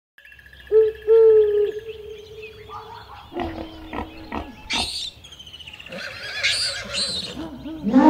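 A string of different wild animal calls one after another. A long held call over bird chirping comes first, then a run of shorter cries and sharp clicks.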